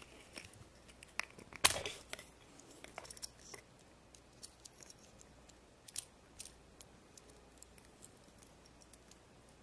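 Light clicks and taps of small plastic parts as fingers handle a miniature toy car and an opened plastic surprise-egg capsule, the sharpest click about two seconds in and the clicks thinning out later.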